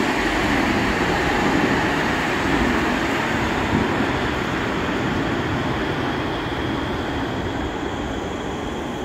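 Cologne Stadtbahn light-rail trains moving through an underground station: a steady rumble of wheels on rail, echoing off the station walls, easing slightly toward the end.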